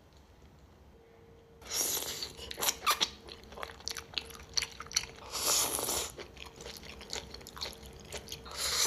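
A person biting and chewing food with crunching sounds, irregular and close, starting about two seconds in.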